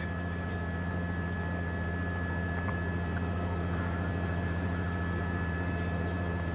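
Steady drone of a news helicopter's engine and rotor heard through the pilot's open radio microphone: an even low hum with a faint thin high tone held over it.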